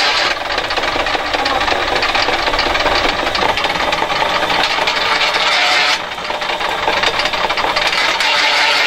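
Wicker-working bench machine with a large flywheel running as split wicker strips are fed through it, a loud steady mechanical rattle that eases briefly about six seconds in, then picks up again.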